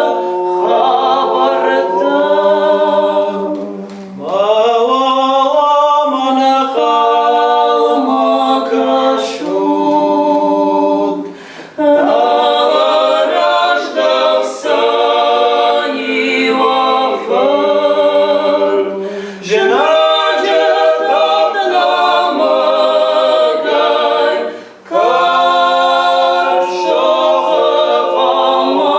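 A woman and two men singing an Ossetian song a cappella in close harmony, in long sung phrases with short breaks for breath about four, twelve, nineteen and twenty-five seconds in.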